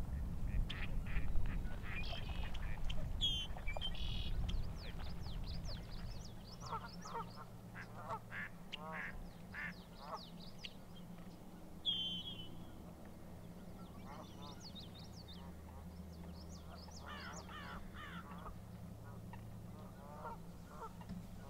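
Waterfowl calling: many short calls in quick, overlapping runs throughout, with a couple of sharp high notes from another bird and a low rumble in the first few seconds.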